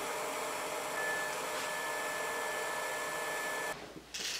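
Sherline benchtop milling machine's spindle motor running steadily, with a thin high whine joining about a second in. It cuts off suddenly near the end.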